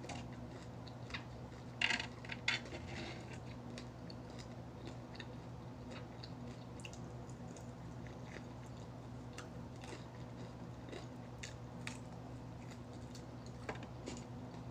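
Close-miked eating of crispy fried chicken: crunching bites, loudest about two seconds in, then quieter chewing with scattered small crunches.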